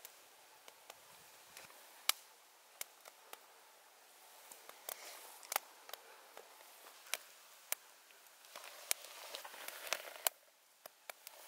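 Food sizzling in a cast iron skillet over a campfire: a steady soft hiss broken by many sharp pops and crackles. The hiss swells near the end, then drops away suddenly.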